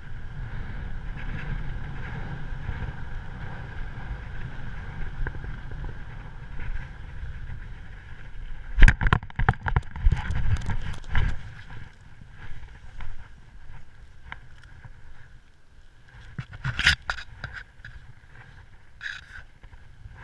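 Wind rushing over the microphone during flight, a steady low rumble with hiss. About nine seconds in, a sudden run of loud thumps and scrapes as feet touch down and run through grass, then quieter rustling of grass and clothing with a few sharper knocks later on.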